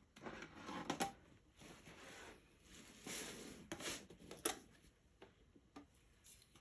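Paintbrush scrubbing and tapping on a palette while mixing dark watercolour: several short rubbing strokes with a few light clicks.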